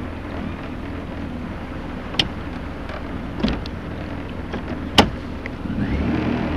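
Boat motor running steadily at low speed, with a few sharp knocks and a swell in engine sound near the end.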